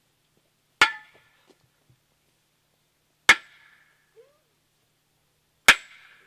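Sledgehammer striking a short metal post in the ground: three clanging blows about two and a half seconds apart, each ringing briefly.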